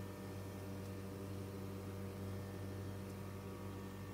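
Double-sided etching machine running, a steady low hum with a few faint higher tones that does not change.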